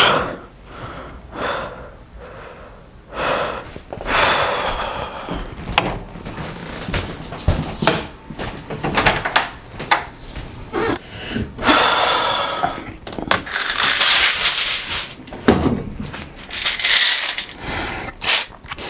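A man's heavy, ragged breathing in repeated hissing gasps, mixed with movement and handling noises and a few sharp clicks.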